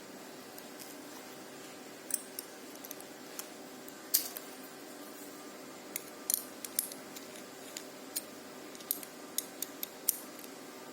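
Sharp, irregular clicks and light clinks of small hard objects being handled, over a steady faint hum.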